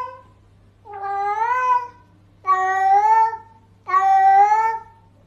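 Domestic cat giving drawn-out meows, each about a second long and rising then falling in pitch. The tail of one call comes at the start, followed by three more in a row with short pauses between them.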